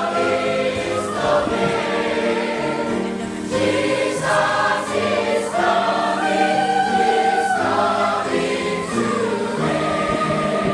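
A choir singing a church song, several voices together holding sustained notes in harmony.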